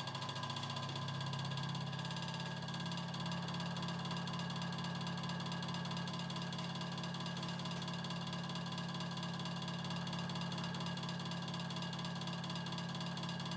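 Early-1950s Vornado Jr. table fan's two-pole shaded-pole motor running on high, a steady, quite noisy hum with a buzz above it. The motor's windings are shorted, which the owner takes for a burned-up motor, so the fan runs at only about a third of its speed.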